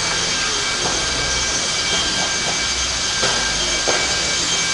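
Electric RC stadium trucks with 13.5-turn brushless motors racing: a steady, high-pitched whine from the motors and drivetrains over tyre noise, with two light knocks past the middle.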